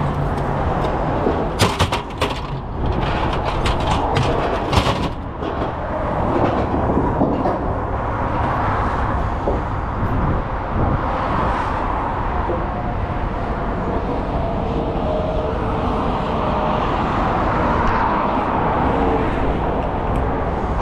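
Steady running noise of heavy vehicle engines and road traffic. A run of sharp knocks comes about two to five seconds in.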